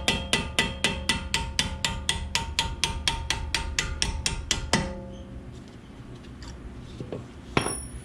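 Hammer tapping rapidly on a punch to drive out the pad retaining pins of a BMW M235i's Brembo front brake caliper, about four ringing metal strikes a second. The tapping stops a little under five seconds in.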